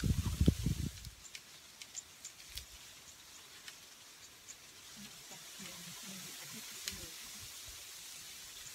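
Chewing close to the microphone in the first second, then faint scattered crackling clicks as a steamed shrimp's shell is peeled off by hand, over a steady faint hiss.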